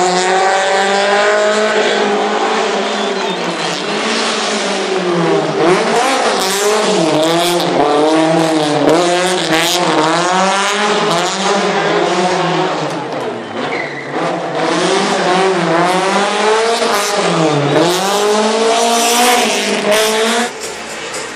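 Race car engine revving hard, its pitch climbing and then dropping sharply several times as it brakes, changes gear and accelerates through tight turns, with some tyre squeal. The sound falls away near the end.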